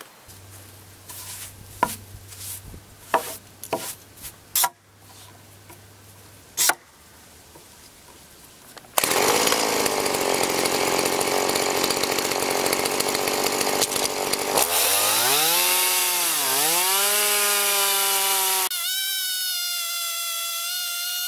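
A few clicks and knocks, then, about nine seconds in, a Stihl MS-170 two-stroke chainsaw on a homemade mini mill cutting lengthwise through a log at full throttle. Later its engine pitch swings up and down under the changing load, and near the end it settles into a steadier high whine.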